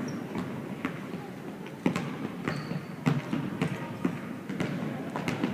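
Sharp knocks and thuds at uneven intervals on a hard floor in a large room, with a murmur of voices behind.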